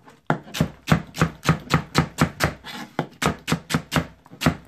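Chef's knife rough-chopping celery stalks on a plastic cutting board: a quick, even run of knife strikes, about four a second, with a brief pause about three seconds in.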